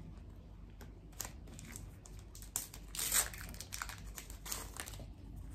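A foil trading-card pack wrapper being crinkled and torn open by hand: a run of short crackling rustles, loudest about three seconds in.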